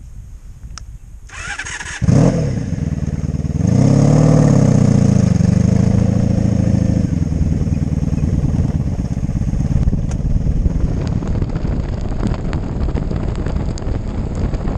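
Motorcycle engine starting about two seconds in, revving with a pitch that rises and then falls, then running steadily as the bike rides on.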